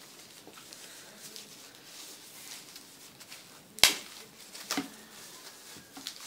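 Product packaging being handled and opened: light rustling and scraping, with one sharp snap about four seconds in and a smaller knock just before five seconds.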